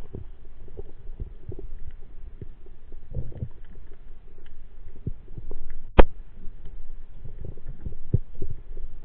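Underwater sound through an action camera's waterproof housing: irregular muffled low thumps and rumbling from water movement and handling, with faint small crackles. One sharp click about six seconds in is the loudest event.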